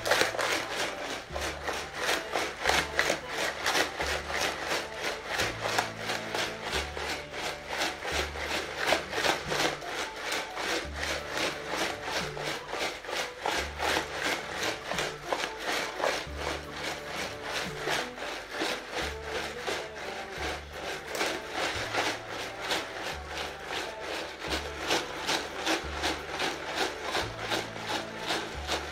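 Ice pellets and salt rattling and scraping inside a clear plastic jar shaken by hand, in a quick, even rhythm of several strokes a second. The shaking freezes a bag of milk mix packed in the salted ice into shaken ice cream.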